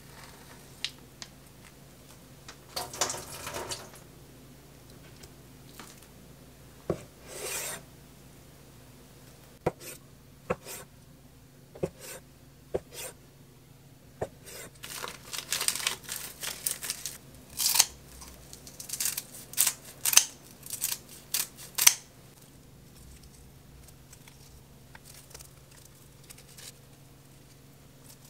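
Plastic film rustles and tears as it is peeled off a tofu tray. Then a cleaver cuts through the soft tofu with single clicks on an end-grain wooden cutting board. A busier run of crisp crackling snips follows as dried laver (gim) sheets are cut and handled.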